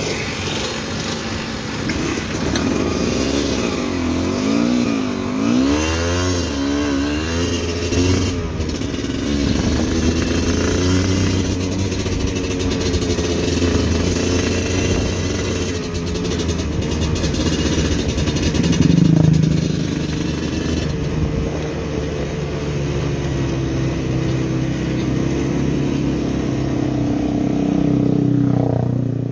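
Motorcycle engine running while riding, its revs rising and falling repeatedly in the first several seconds, then holding steadier. A hiss sits over it until about two-thirds of the way through.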